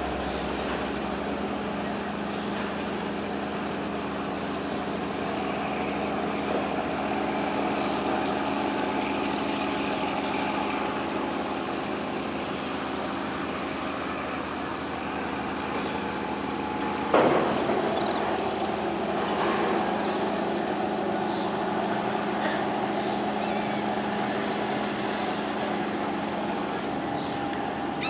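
An engine running steadily with a constant low drone, and one sharp knock about two-thirds of the way through.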